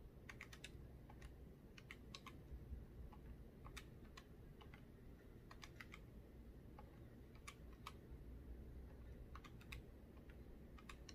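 Faint, irregular clicks of keys being pressed one at a time with short pauses, as a list of prices is keyed in to add up a total.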